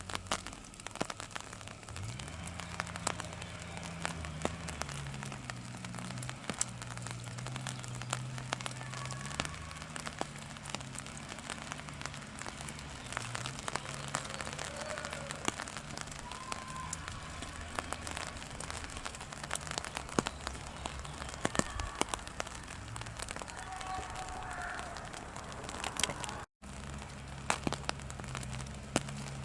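Raindrops pattering on an umbrella over a steady low machine drone that shifts pitch in steps: the neighbours' racket.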